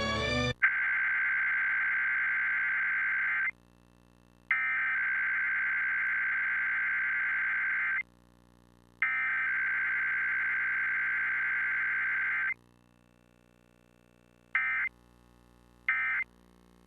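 Emergency Alert System SAME data tones from a TV broadcast: three buzzing digital bursts of about three seconds each, with short pauses between. About a second and a half later come two much shorter bursts, the end-of-message code.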